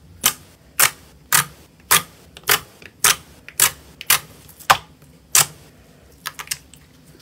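Slime being worked by hand, giving about ten crisp pops at a steady rate of roughly two a second, then a few fainter ticks near the end.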